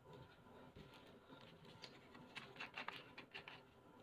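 Near silence: faint room tone with a few faint, short ticks and scratches about two to three and a half seconds in.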